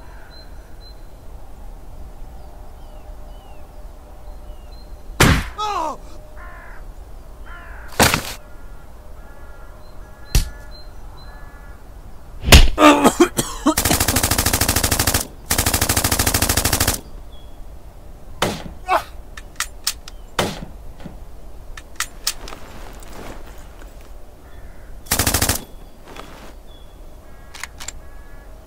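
Battle sound effects of gunfire: single shots scattered every few seconds, and two long machine-gun bursts, each a couple of seconds, about halfway through.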